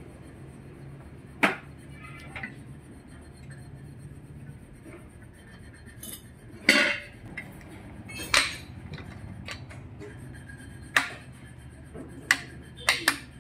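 Metal scooter engine parts and hand tools clinking and knocking together as a Honda Dio 110 engine's aluminium crankcase is assembled by hand: scattered sharp clanks, about eight in all, over a low steady hum.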